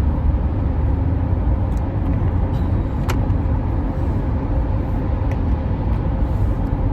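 Steady road and engine rumble inside a moving car, mostly low-pitched, with a brief click about three seconds in.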